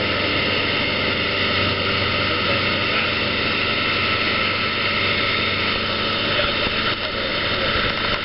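Boat under way at speed: a steady low engine drone under a constant rush of wind and water noise.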